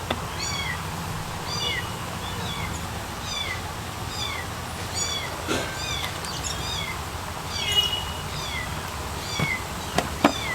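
A small animal's short high-pitched calls, repeated steadily about every half second, with a few faint knocks near the middle and end.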